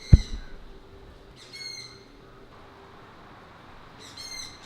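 Three short, harsh screeches of a young great horned owl begging, a second and a half and then two and a half seconds apart. A sharp thump, the loudest sound, comes just after the first screech.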